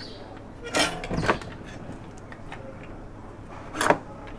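Handling noises at a soldering workbench: three brief scraping sounds, about a second in, just after, and near the end (the last the loudest), as the box of solder wire and the soldering iron are picked up, over a faint steady hum.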